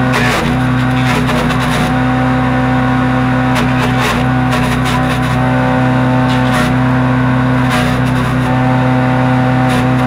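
Harbor Freight Predator wood chipper's small gas engine running at a steady speed, with short bursts of crackling and snapping as leafy branches are fed in and chipped, several times over.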